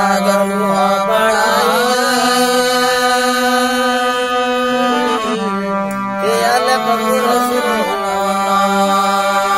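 Marwari folk music: a steady held drone under an ornamented melodic line that bends and glides, rising twice, about a second in and again around six seconds in.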